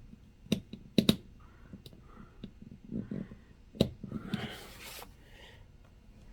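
Screwdriver and small laptop parts clicking and tapping as the hinge-bracket screws are worked out, with several sharp clicks and a brief scratchy rustle about four seconds in.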